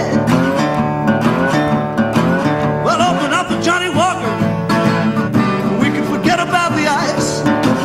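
A man singing a blues song to his own acoustic guitar accompaniment.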